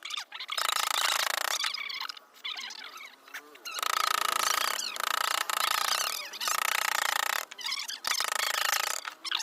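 A carving tool working wood in repeated strokes, each about a second long with short pauses between them.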